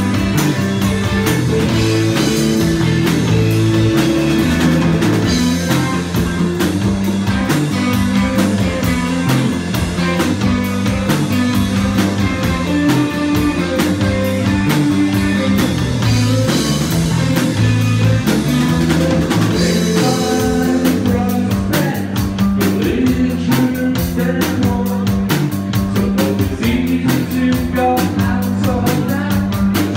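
Live rock band playing: drum kit, bass and electric guitar, with a man singing.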